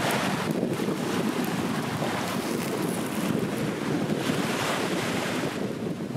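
Waves washing onto a sandy beach with wind buffeting the microphone: a steady rushing noise that swells and eases, fullest around the middle.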